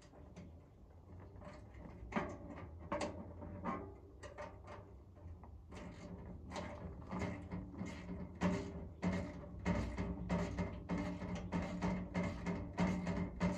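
Light metal clicks and knocks of hand tools and hardware as a storage box is bolted up under a travel trailer. Background music with a beat comes in about halfway through.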